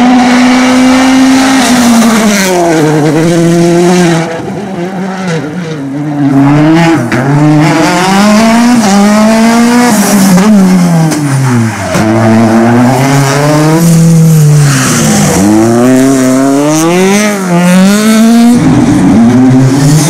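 Rally cars' engines revving hard on a tarmac stage. The pitch climbs in steps through the gears, then drops with quick blips as the cars brake and downshift for corners, over and over as several cars go by in turn.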